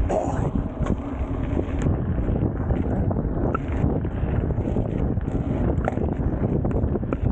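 Mountain bike ridden on a dirt trail: wind buffets the action camera's microphone over the rumble of the tyres on the dirt, with scattered clicks and rattles from the bike.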